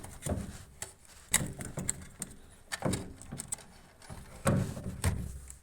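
Drain pump housing of an Indesit top-loading washing machine being pulled out of its slide rails: irregular knocks, clicks and scraping, with the loudest knocks about a second in and again near the end.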